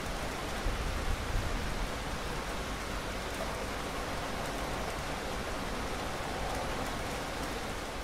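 Steady thunderstorm rain, an even hiss, with a brief low rumble about a second in.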